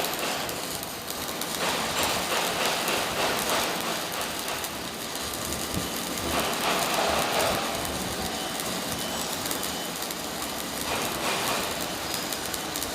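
Welding arc crackling steadily as a bead is laid overhead, an irregular frying, spattering sound.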